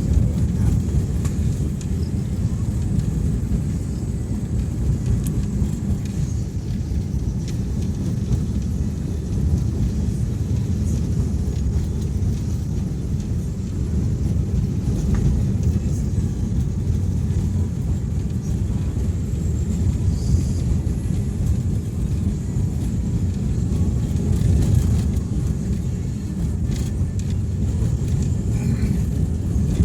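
Steady low rumble of a vehicle travelling along a road: engine and road noise at an even pace.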